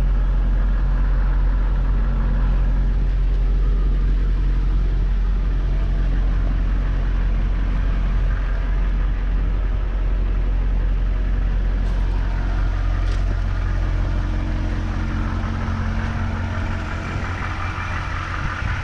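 M1008 CUCV's 6.2-litre V8 diesel idling steadily.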